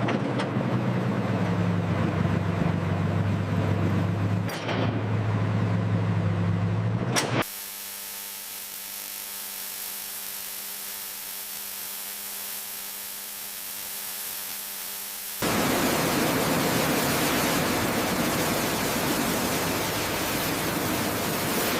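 A steady low machine hum, broken briefly about four and a half seconds in, stops suddenly after about seven seconds and leaves a soft hiss. About fifteen seconds in, a louder even rushing noise starts.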